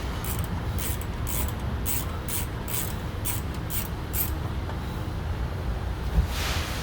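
Screwdriver driving in the lock cover's screws: a run of short, hissy scraping strokes, about three a second, that stops after about four seconds, over a steady low rumble. A single dull thump about six seconds in.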